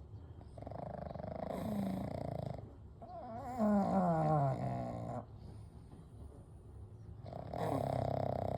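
Sleeping pugs snoring: three long snores about three seconds apart. The middle one is the loudest and carries a falling, wavering tone.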